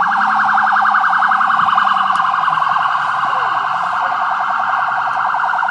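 Police siren sounding steadily in a fast, rapidly pulsing warble.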